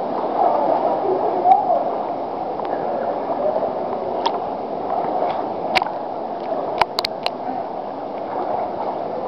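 Water sloshing and gurgling around swimmers moving through a gorge pool, with several short sharp splashes or knocks between about four and seven seconds in.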